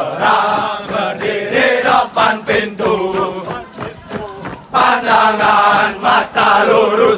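A large group of male military trainees chanting a running song loudly in unison as they jog in formation. The singing comes in phrases, with a brief lull about four seconds in before the full chorus picks up again.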